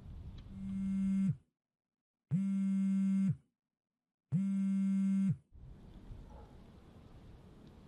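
A mobile phone vibrating with an incoming call. There are three buzzes about a second long, two seconds apart, each sagging in pitch as it stops.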